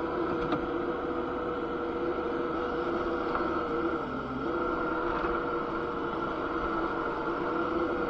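Engine of a Kubota SCL1000 stand-on compact skid steer running steadily at high speed. About four seconds in, the pitch briefly sags and then recovers, as when the machine takes on load.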